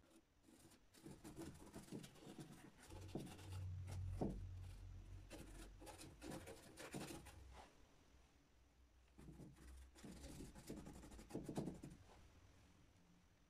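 A paintbrush scraping and dabbing oil paint onto a painting panel, faint scratchy strokes in two runs with a short lull about eight seconds in.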